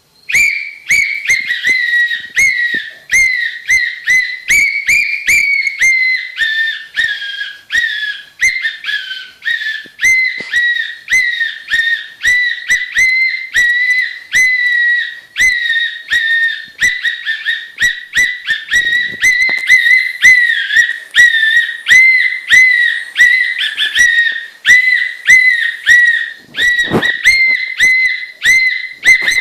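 Lhasa Apso dog whining continuously in a high, thin whine that pulses about twice a second.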